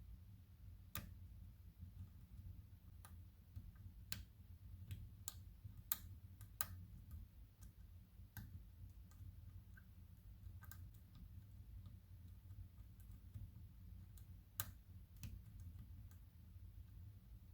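Faint, irregular clicks of a steel lock pick working the pins of an old BAB 5-pin lock, with a few sharper clicks over a low steady hum, as the pins are tapped and set one by one.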